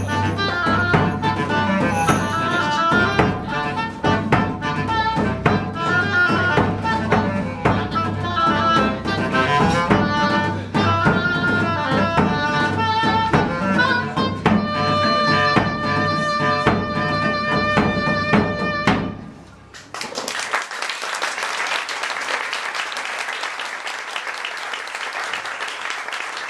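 A woodwind ensemble of clarinets, bass clarinet and saxophone with percussion plays live, closing on a long held chord that cuts off about nineteen seconds in. The audience then applauds.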